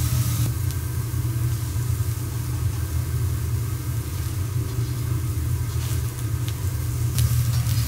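Teppanyaki griddle station: a steady low rumble under a quieter sizzle of food on the hot plate. The sizzle drops away about half a second in and comes back near the end, with a few light metal taps.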